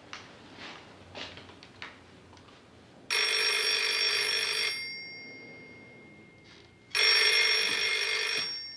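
Landline telephone bell ringing twice, each ring about a second and a half long, with the bell ringing on faintly as it dies away after each.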